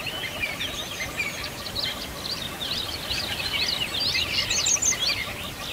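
A dense chorus of many small birds chirping and twittering over one another, with a steady stream of quick rising and falling chirps.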